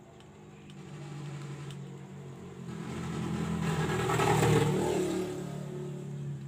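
A motor vehicle engine passing by: it swells to a peak about four and a half seconds in, then fades.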